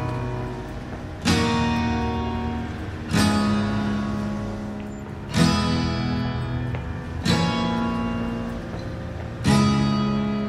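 Background music: slow acoustic guitar, a chord strummed about every two seconds and left to ring out, five strums in all.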